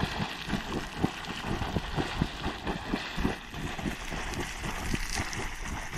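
Small geyser erupting from a shallow pool, its water spurting and splashing in irregular pulses several times a second over a steady hiss.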